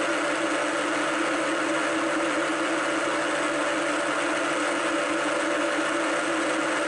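Deckel FP1 milling machine running steadily with its spindle turning an edge finder: an even machine hum with a few held tones and no change in speed.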